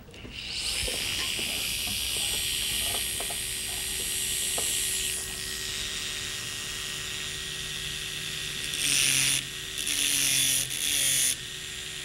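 Two electric dental straight handpieces spinning with a steady high whine. From about three-quarters of the way in, a carborundum disc grinds into the shank of a dental bur in short bursts, cutting the bur down to length.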